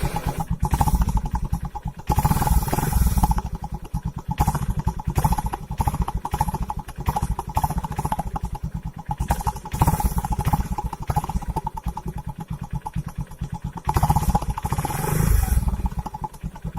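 A Honda Shine SP motorcycle engine is running and being revved in repeated bursts. The sound comes through an exhaust silencer with an empty spray bottle wired onto it, a home-made attempt to make the exhaust note deeper.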